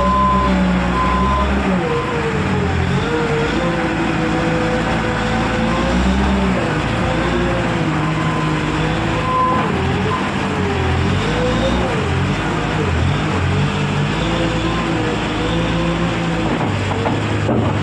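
Skid steer loader's diesel engine running under working load, its pitch rising and falling again and again as the throttle and load change.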